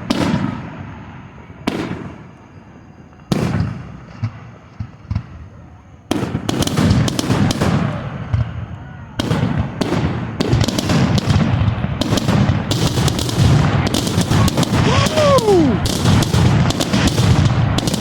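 Fireworks going off: a few separate bangs in the first few seconds, then from about six seconds in a dense, continuous barrage of bangs and crackling.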